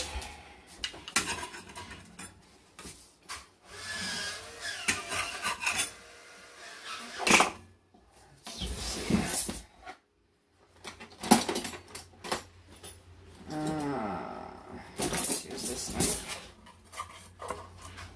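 Kitchen handling noise: utensils and a plate clattering and scraping while a knife and pizza cutter are got out, with a few sharp knocks. The loudest knocks come about seven and eleven seconds in. A short, falling, voice-like call is heard near the end.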